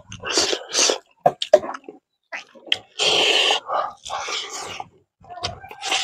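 A person eating rice and fish curry by hand, close to the microphone: wet mouth smacks and chewing clicks, then two short, loud breathy bursts about halfway through.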